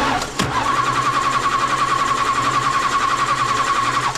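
Starter motor cranking a 1966 Plymouth Belvedere's engine, which does not fire, for a compression test with a spark plug out. A steady whine with an even rhythmic pulse settles in about half a second in, and the cranking stops suddenly near the end.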